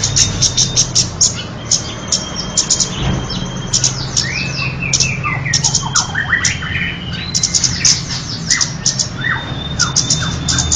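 Recorded kemade bird calls played as a hunting lure: a dense stream of sharp chirps and squawks with runs of quick falling whistled notes, over a steady low hum.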